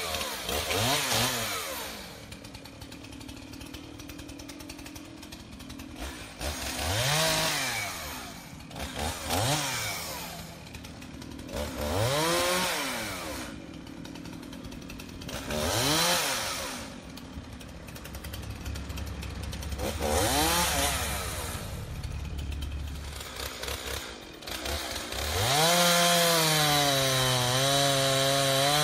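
Large Stihl two-stroke chainsaw, throttled up in repeated bursts that rise to high revs and drop back to idle every few seconds. Near the end it is held at steady high revs.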